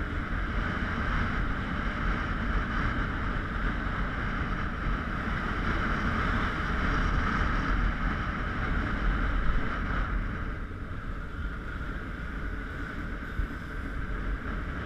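Motorbike riding at low speed: its small engine runs under steady wind rushing over the camera microphone. The sound drops a little about ten seconds in.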